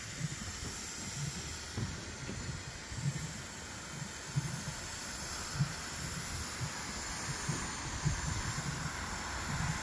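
Steady hiss of steam venting from geothermal vents and hot springs, with soft, irregular low rumbles underneath.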